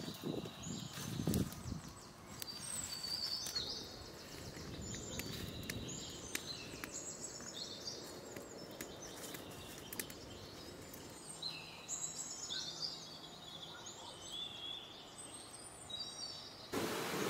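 Small birds chirping and singing throughout. For the first two seconds a small fire of dry twigs crackles and snaps. Near the end a louder steady hiss cuts in.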